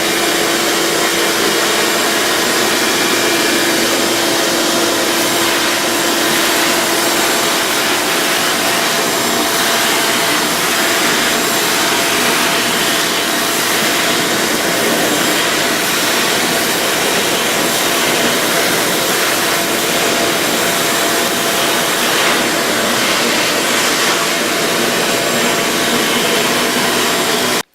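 Ridgid WD1851 wet/dry shop vacuum running steadily, a dense even whoosh of air and motor, cutting off suddenly at the very end.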